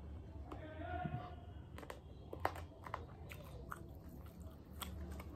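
A person chewing and biting into chicken kebab eaten by hand, with several sharp clicks and smacks through the middle and later part.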